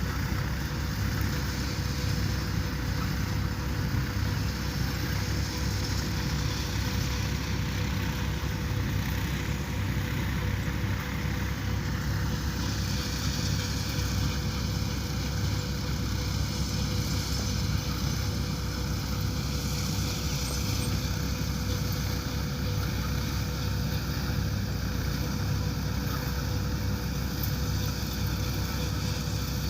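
Combine harvester running steadily, a continuous engine and machinery drone with a steady hum held on one pitch.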